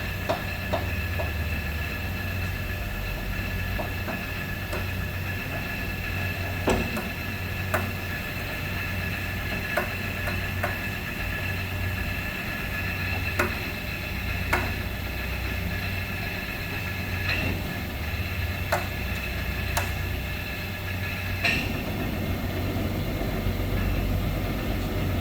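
1957 Monarch Model 32 NN engine lathe running under power: a steady hum of the drive with a gear whine over it and scattered light clicks. The whine drops away about twenty seconds in.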